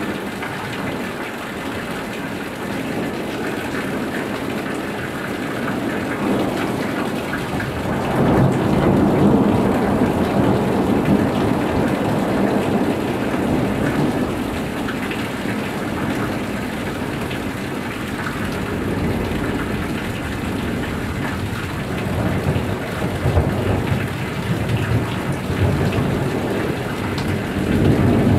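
Heavy thunderstorm rain pouring, made louder by roof runoff draining at the corner of a house, with rolling thunder swelling up about eight seconds in and again near the end.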